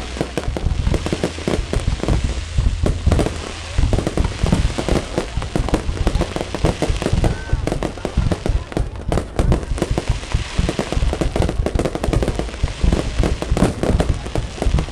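Fireworks display with aerial shells bursting in a rapid, continuous barrage of bangs and crackles.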